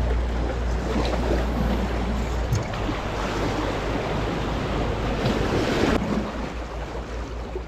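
Sea waves washing and splashing against the rocks of a breakwater, with wind buffeting the microphone. The low wind rumble drops away about two and a half seconds in, and the whole sound falls quieter a little after six seconds.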